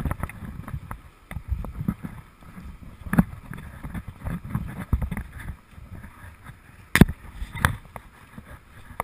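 Rubbing and thumping on a body-worn action camera as its wearer walks on gravel, with the crunch of footsteps on the gravel. Two sharp knocks about seven seconds in are the loudest sounds.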